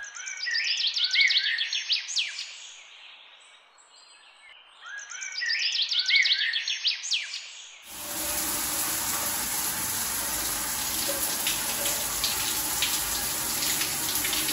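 A songbird sings the same short, high, quickly sweeping phrase twice, about five seconds apart. About eight seconds in, a steady rush of water from a running tap starts suddenly and keeps going.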